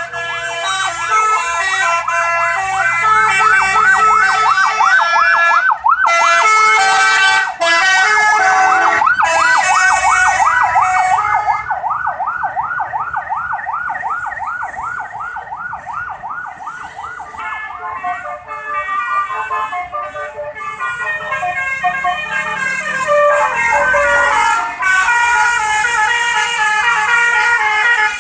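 A bus's telolet basuri musical horn playing a melody: stepped multi-tone notes at the start and end, and in between a long, fast warbling, siren-like tone.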